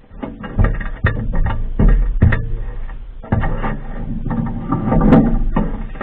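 Irregular knocking and clattering of objects being handled, with several heavier thumps.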